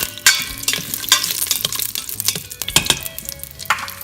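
Mustard seeds and dried red chilies sizzling and spluttering in hot oil in an Instant Pot on sauté, being stirred: a steady hiss broken by many sharp pops and scraping strokes.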